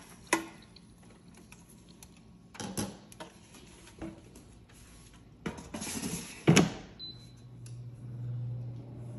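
Kitchen handling sounds: scattered clicks and knocks, a short hiss and a loud knock about six and a half seconds in. Then a short high beep and the steady low hum of an air fryer running.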